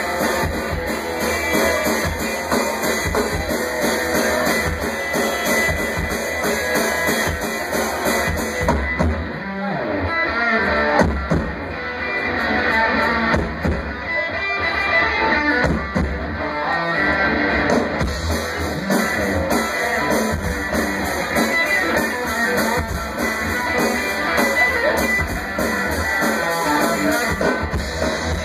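Live rock band playing, with electric guitar and a drum kit.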